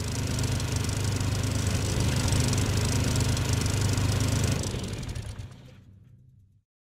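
Snowmobile engine running steadily at trail speed, with a broad hiss over it, fading out about five seconds in.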